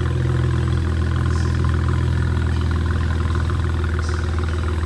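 BMW Z4 sDrive35is's twin-turbo N54 straight-six idling steadily, just after being started.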